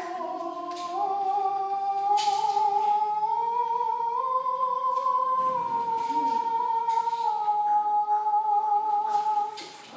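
A man's voice holding one long sung note as a vocal exercise, a bass voice carried up high. The pitch climbs slowly for about five seconds, eases gently back down, and stops near the end.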